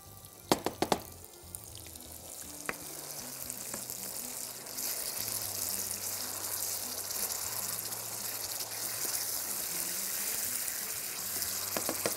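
Tomato sauce frying in hot oil in a frying pan, a steady sizzling hiss that grows louder about five seconds in. A few sharp knocks in the first second.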